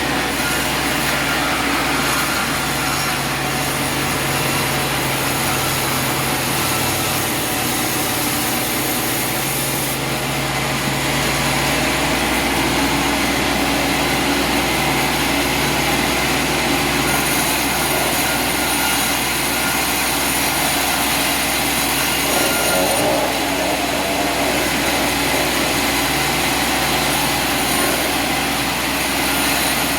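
An engine running steadily and without a break.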